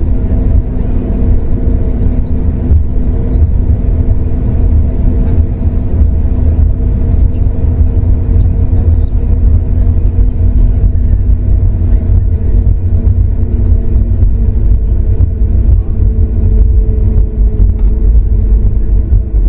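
Boeing 737 MAX 8-200 cabin noise before takeoff: the CFM LEAP-1B engines run at low power with a steady hum over a loud, even low rumble, with a few faint rattles.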